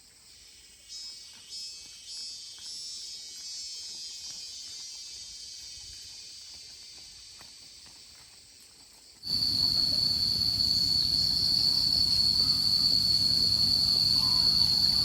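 Insects buzzing in a steady high-pitched chorus, faint at first and much louder after an abrupt cut about nine seconds in, over a low rumble.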